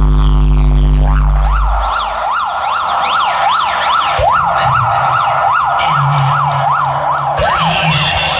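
Large DJ sound system under sound test, playing a deep sustained bass drone that drops out about two seconds in, followed by a fast siren effect whooping up and down, about two sweeps a second, over loudspeakers.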